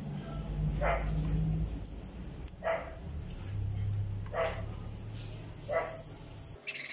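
A dog barking single barks about every second and a half, five in all, over the faint steady sizzle of crablets deep-frying in oil in a wok.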